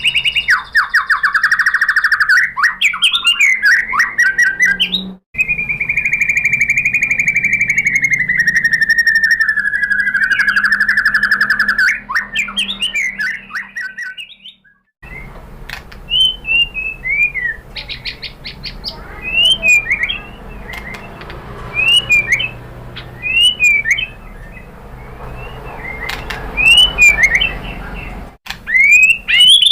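White-rumped shama singing: rapid trills and rattles, one long buzzy note held for several seconds, then a run of short, sharp down-slurred whistles. The song breaks off abruptly between passages.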